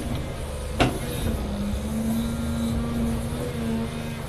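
Caterpillar 336 excavator's diesel engine and hydraulics working under load as the bucket digs through rocky clay. There is a steady hum that strains through the middle, and one sharp clank of the bucket against rock about a second in.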